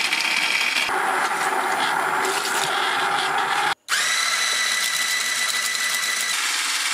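Silvercrest SSMS 600 W hand blender's motor running, first with the chopper attachment working food in its bowl. After a brief cut about four seconds in, the blending stick runs in the tall beaker with a steady high whine, which drops out near the end while the motor noise carries on.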